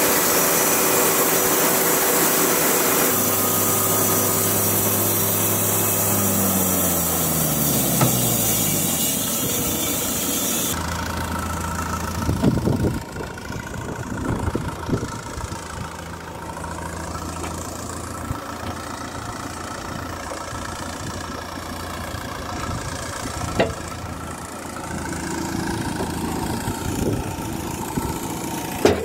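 Wood-Mizer LT70 portable bandsaw mill sawing through a square teak cant, its band blade running with a loud hiss over the engine. About six seconds in, the saw's drive winds down with a falling whine, and the mill's engine then idles steadily, with a few sharp knocks near the end.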